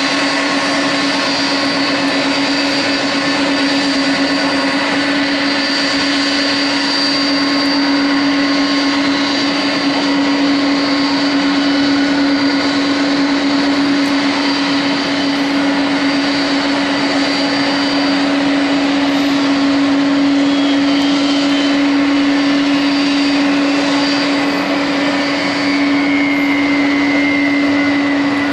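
Jet airliner noise at an airport apron: a steady, loud hum with high whining tones over it. A second whine slowly falls in pitch over the last several seconds.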